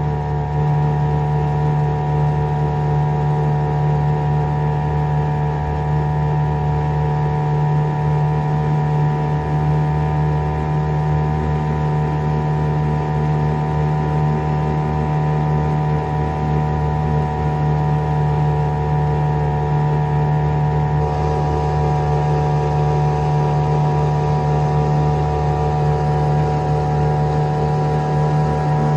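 Hangkai 3.6 hp two-stroke outboard motor running at a steady speed, pushing a small aluminium jon boat; the engine is freshly broken in.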